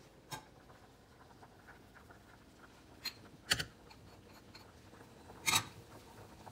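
Kitchen utensil knocking against a cooking pot: four short sharp taps as the spice mix goes into the boiling butter, the loudest about three and a half and five and a half seconds in.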